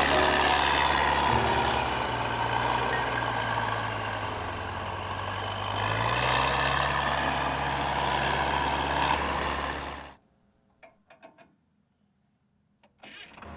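Heavy engine running steadily, its pitch shifting slightly a little after one second and again about six seconds in. It cuts off abruptly about ten seconds in, leaving near silence with a few faint ticks.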